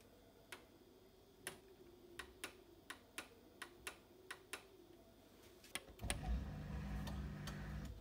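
Dishwasher control-panel buttons clicking, about a dozen short presses as the wash program is stepped to its hottest setting. About six seconds in the dishwasher starts its cycle with a steady low hum.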